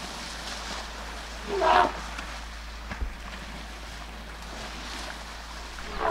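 Elephants sloshing and splashing through shallow water: a steady wash of water noise. A short pitched call rises above it about a second and a half in, and a sharp knock comes around three seconds in.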